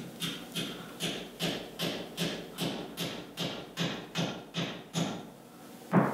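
A hammer tapping greased bushings and a metal sleeve into the eye of a steel leaf-spring shackle: steady blows about two and a half a second, each a dull knock with a short ring, then one harder blow near the end.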